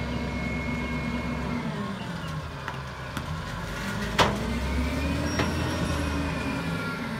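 Engine of a CNG rear-loader garbage truck, an Ez-Pack Goliath on an MRU chassis, running with a high whine that drops about a second and a half in. The engine then picks up as the truck pulls forward, with one sharp knock about four seconds in.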